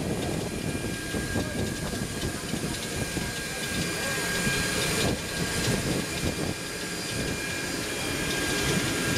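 Aircraft ramp noise beside a parked jet: a steady high turbine whine over a rough low rumble, with wind buffeting the microphone.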